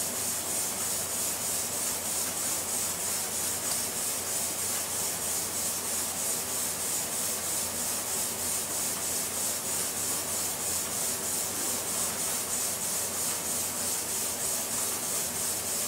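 A steady high hiss with a faint, even pulsing, unchanged throughout.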